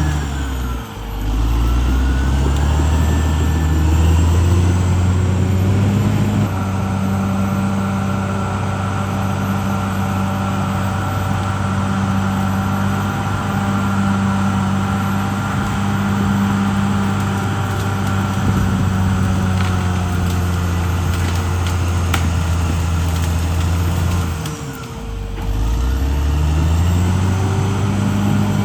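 CAT D6R XL bulldozer's diesel engine working: it revs up over the first few seconds and holds at high revs under load. It drops back briefly about 25 seconds in, then revs up again. A steady whine runs alongside.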